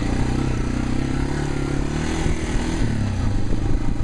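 Yamaha TW200 dual-sport motorcycle's single-cylinder four-stroke engine running as the bike is ridden, its note shifting a little over two seconds in.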